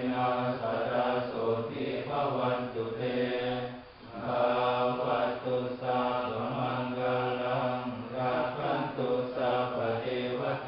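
Theravada Buddhist monks chanting in a steady, even drone, with a short breath pause about four seconds in.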